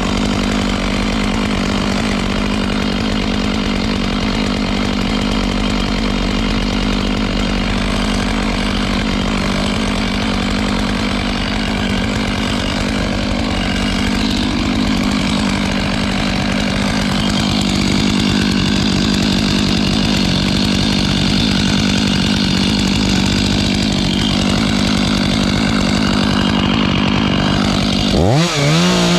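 Two-stroke chainsaw running steadily at high revs. About a second before the end the revs drop sharply and climb back up.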